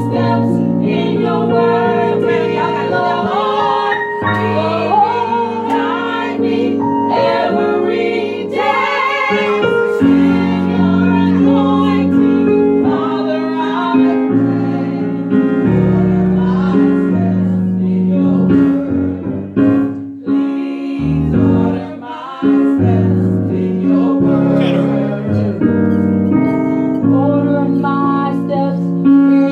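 Small gospel vocal group singing in harmony, men's and women's voices together, over sustained keyboard chords.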